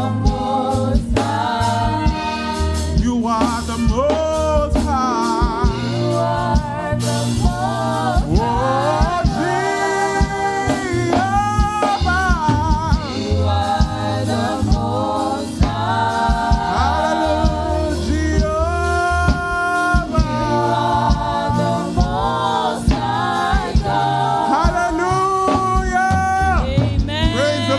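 Gospel praise-and-worship music: a church praise team singing, with several voices holding and gliding between notes, over a band with bass and a steady beat of drum strikes.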